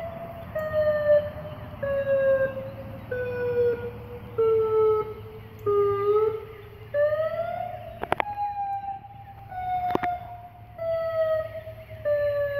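Synthesized emulation of a Federal Signal Modulator/UltraVoice outdoor warning siren playing a pulsed wail: a pitched tone switching on and off roughly once a second while its pitch slowly falls. About seven seconds in, the pitch glides back up and starts falling again. Two sharp clicks come about eight and ten seconds in.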